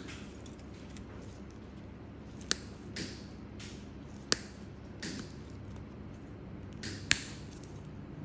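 Steel cutting nippers snipping through a thick, crumbly toenail: three sharp snaps a couple of seconds apart, with softer scraping crunches between them.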